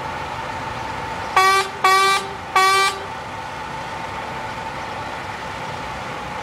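A vehicle horn toots three short times in quick succession, about a second and a half in, over the steady running hum of a concrete pump truck.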